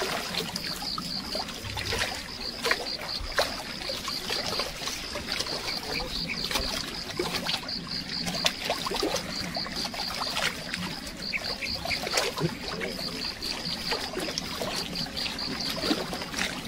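Small lake waves lapping and trickling against shoreline rocks, with scattered small splashes and knocks. A steady high chirping pulses about four times a second throughout.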